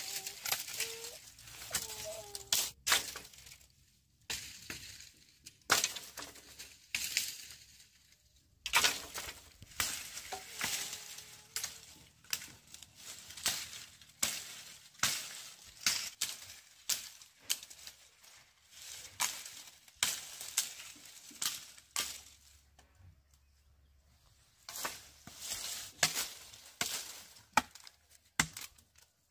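Sugarcane stalks being cut with a blade: sharp chopping and cracking strikes about once a second, each with a brief crackle of stalk and dry leaf, with a short lull near the end.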